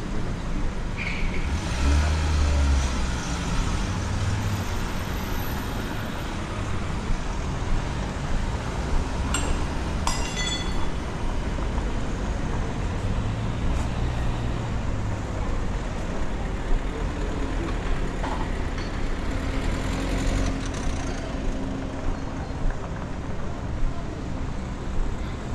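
City street traffic: a steady wash of road noise with vehicles passing by, and a brief high ringing sound about ten seconds in.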